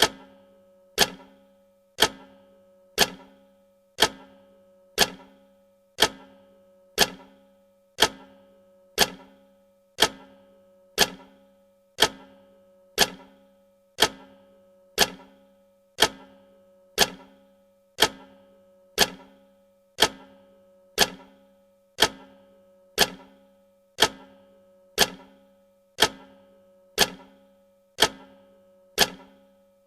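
Clock tick sound effect of a countdown timer: one sharp tick every second, evenly paced, each dying away with a short ring.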